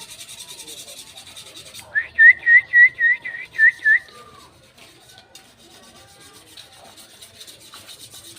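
Prenjak lumut calling: a quick run of about eight short whistled notes, each flicking upward, about four a second, starting about two seconds in and lasting about two seconds. Faint rustling before and after.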